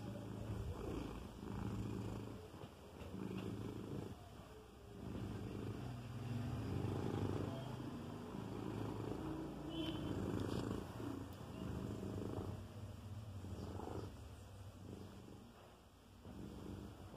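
Domestic cat purring steadily while it suckles on a fleece blanket, the purr swelling and fading in cycles every second or two.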